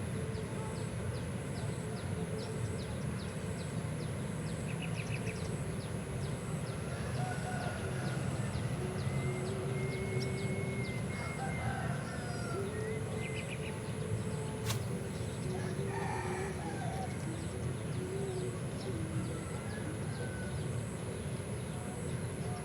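Roosters crowing faintly several times, each call lasting a second or two, over a steady high-pitched insect drone with rapid ticking and a low background rumble.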